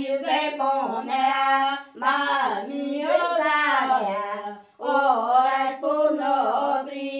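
An elderly woman singing an unaccompanied Catholic devotional hymn (a bendito or ladainha) in long held notes. She sings three phrases, breaking briefly for breath about two seconds in and again near the middle.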